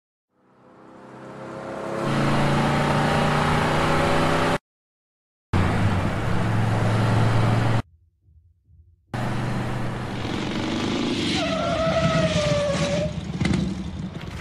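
Motorcycle engine fading in and running hard at speed, cutting out abruptly twice, then a falling tyre squeal as it brakes to a stop.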